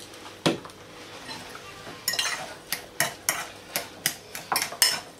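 A metal spoon stirring a thick mashed-broccoli mixture in a ceramic bowl, clinking and scraping against the bowl's side several times a second from about two seconds in. A single knock comes about half a second in.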